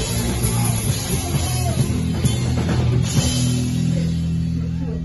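Punk band playing loud live: distorted electric guitar, bass and a pounding drum kit. About three seconds in, the drum hits thin out and a held chord rings on.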